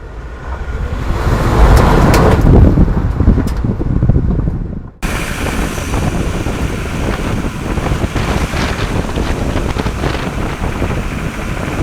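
Ford Ranger FX4 pickup driving, with heavy wind buffeting the microphone. The noise swells over the first couple of seconds, cuts off abruptly about five seconds in, then carries on as steady road and wind noise.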